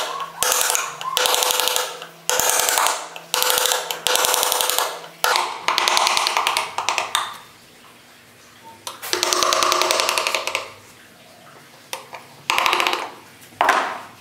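Hammer driving a carving gouge into the wooden spoon's bowl, the blows coming in bursts of rapid strikes about once a second for the first five seconds. After a pause the gouge cuts the wood again in a longer burst and two short ones near the end.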